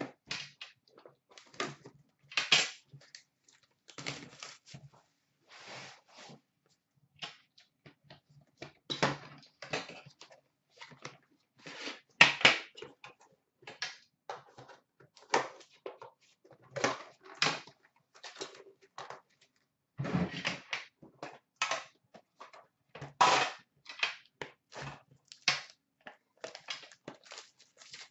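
A sealed Upper Deck The Cup hockey card tin being unwrapped and opened by hand: irregular crinkling and tearing of its plastic wrapping, mixed with clacks and knocks as the metal tin and its lid are handled and set down.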